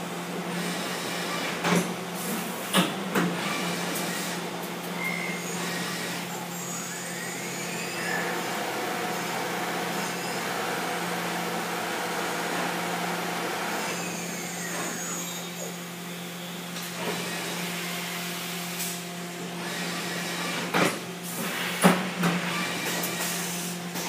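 Mazak Integrex i200ST multi-tasking CNC mill-turn machine running a cut inside its enclosure: a steady machine hum under the hiss of coolant spraying against the door window. A few sharp knocks and clicks come near the start and again near the end.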